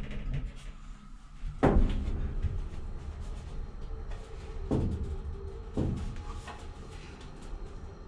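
Inside a closed hydraulic elevator car waiting to travel down: a steady low hum, broken by three dull knocks, one about a second and a half in and two more close together about five and six seconds in.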